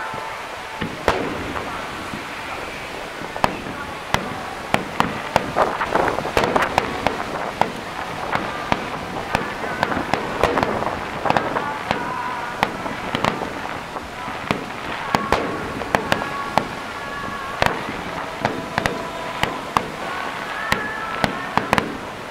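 Aerial firework shells bursting in quick succession, dozens of sharp bangs and crackles of varying strength, thickest in the first half.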